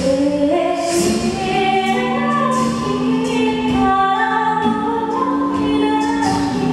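A mixed-voice a cappella group singing sustained chords in close harmony into handheld microphones. The chords change step by step about every second or two.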